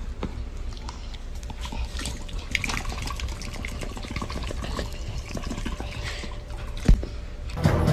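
Wet smacking and clicking of a black puppy mouthing, chewing and licking at a person's hand, with one sharp knock about seven seconds in.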